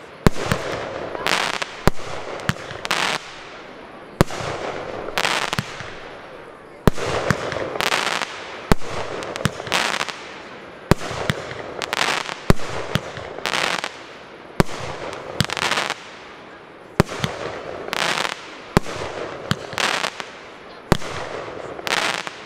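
Aerial fireworks shells bursting in quick succession: sharp bangs about every second or so, each followed by a short hiss.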